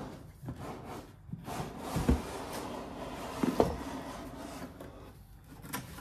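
Cardboard box being slid open: cardboard scraping and rubbing against cardboard, with dull knocks about two seconds and three and a half seconds in.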